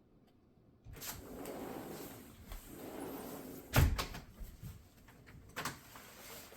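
Rustling and handling noise with scattered knocks, starting suddenly about a second in, with one heavy thump about four seconds in.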